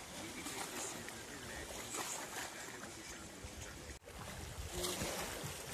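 Wind buffeting the microphone over small waves lapping against a rocky lakeshore; the sound drops out for an instant about four seconds in.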